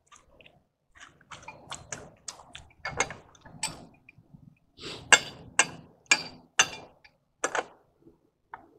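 Pipe wrench working threaded galvanized steel and brass pipe fittings: a run of sharp metal clicks and scrapes, about two a second, loudest in the second half.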